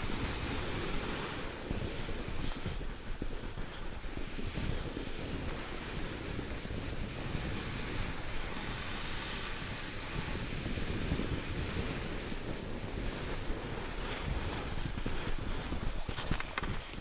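Steady rush of wind buffeting the microphone while skiing downhill, with a few short knocks near the end.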